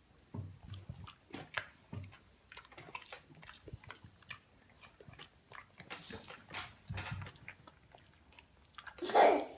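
A Boston terrier chewing a broccoli floret: irregular crunches and smacks of its jaws. A brief, louder sound comes near the end.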